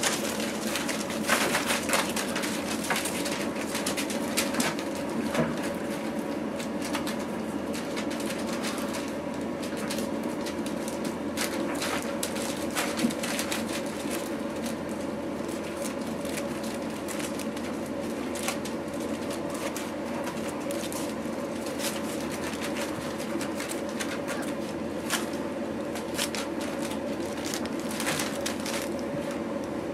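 Boerboel puppies scrambling about on newspaper: irregular crinkling, rustling and scratching of paper under their paws, busiest in the first half, over a steady low hum.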